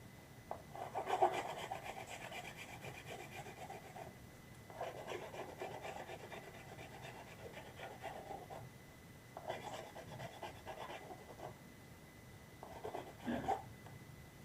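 Sandpaper rubbing on a 3D-printed plastic prop part in quick back-and-forth strokes. There are four runs of strokes with short pauses between them, and the last run is the shortest.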